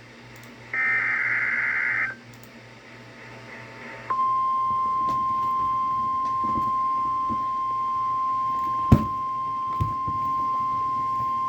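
NOAA Weather Radio alert signalling the start of a new warning. About a second in comes a short, raspy digital screech lasting about a second and a half: a SAME data header burst that encodes the alert. About four seconds in, the steady single-pitch 1050 Hz warning alarm tone starts and holds, with a sharp click about nine seconds in.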